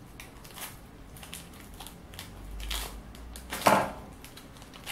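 Scissors snipping and a foil blind bag crinkling as it is cut and pulled open, with one loud, sharp clack about three and a half seconds in as the scissors are set down on the wooden table.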